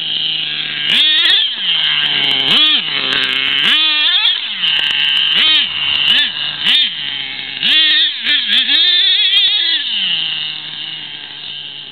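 Nitro engine of an HPI Savage 25 RC monster truck, stock, revving hard in repeated throttle bursts, each one rising to a high whine and dropping back to idle. Near the end it settles into a steady idle.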